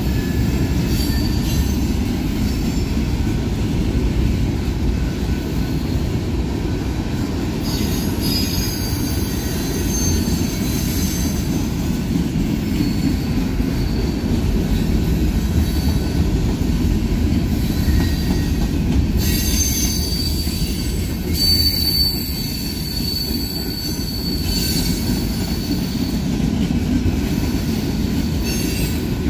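Freight train covered hopper cars rolling past: a steady low rumble of steel wheels on rail. High wheel squeal comes and goes over it, strongest about a third of the way in and again just past the middle.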